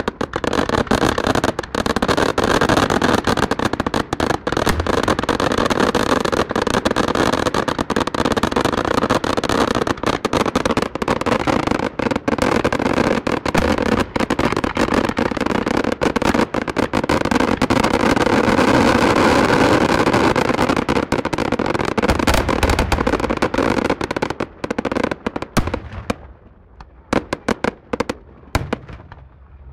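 Aerial fireworks display: a dense, continuous run of crackling and bangs. Near the end it thins to a few scattered pops and stops.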